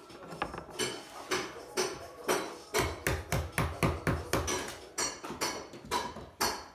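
Hammer blows in quick succession against a plaster wall and door frame during demolition, about three strikes a second, some with a short metallic ring.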